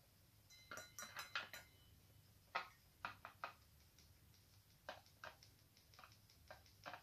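Faint light clicks and taps from a handheld electrostatic static grass applicator being shaken: a quick run of clicks about a second in, then scattered single ticks, over a faint low hum.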